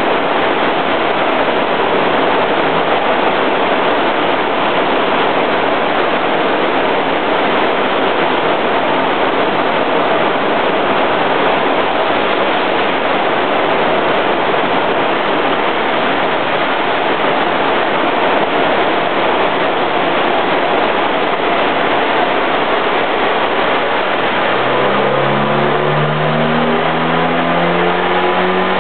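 1984 Honda Accord's carbureted four-cylinder engine, fitted with a Weber 32/36 carburettor, running on a chassis dynamometer with a loud, steady rushing noise. About four-fifths of the way through, the engine note starts to climb steadily in pitch as the revs rise on the third-gear pull.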